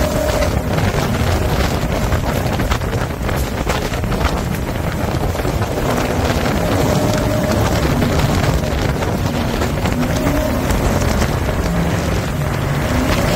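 Jet boat running at speed, its engine note rising and falling faintly under heavy wind buffeting the microphone.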